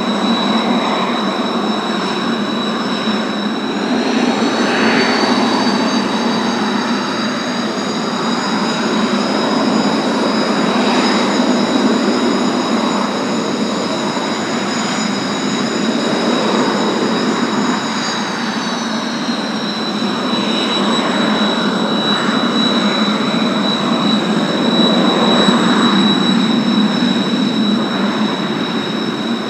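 Kawasaki T-4 jet engines (F3 turbofans) running on the ground: a steady rush under high turbine whines. One whine rises in pitch about four seconds in, holds, and falls back about two-thirds of the way through as the throttle comes back.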